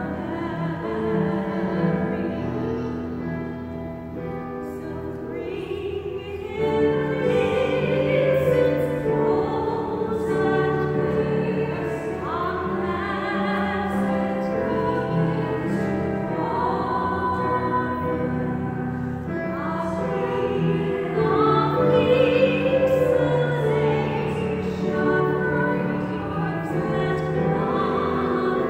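A woman and a teenage girl singing a Christmas carol together, their voices carrying in the reverberant space of a cathedral.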